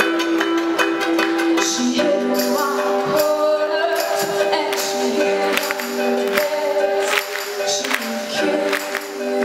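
A live band plays held, sustained chords with a shaking tambourine and frequent percussion hits, and a voice sings over it.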